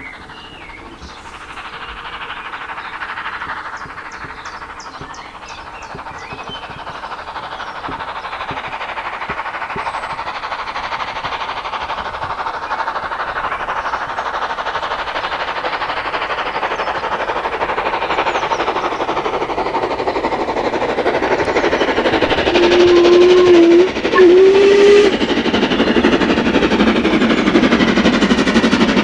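Steam locomotive hauling a train of coaches under steam, its exhaust growing steadily louder as it approaches. Near the end its whistle sounds on a low note, in two blasts lasting about two and a half seconds in all.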